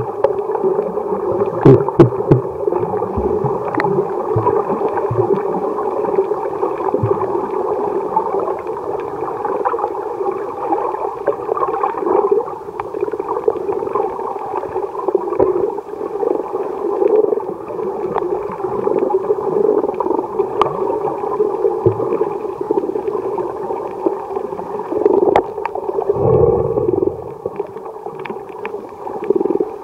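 Underwater sound picked up by a submerged camera while snorkeling: a steady, muffled rushing and gurgling of water, with a few sharp clicks and knocks scattered through it.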